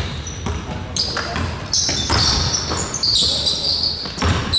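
Basketball bouncing on a gym floor during play, several sharp bounces a second or so apart, with short high-pitched squeaks and people's voices around them.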